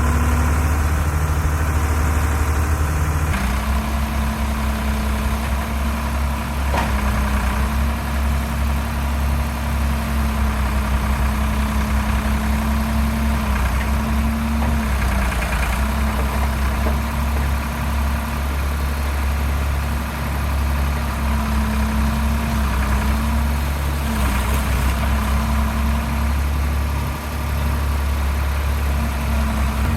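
Doosan DX35z mini excavator's diesel engine running steadily, its pitch dipping briefly a few times.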